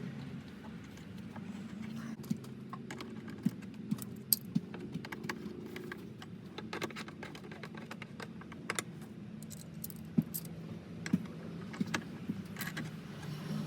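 Irregular metallic clicks and clinks of hand tools on metal while the alternator's mounting bolts are tightened, over a steady low hum.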